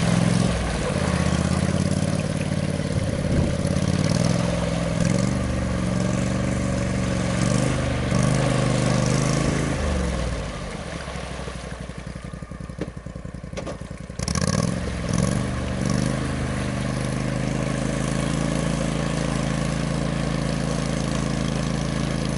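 Engine of an eight-wheeled amphibious ATV running steadily as it drives through mud and out across a pond. For a few seconds in the middle it is fainter with a ticking sound, then it comes back suddenly.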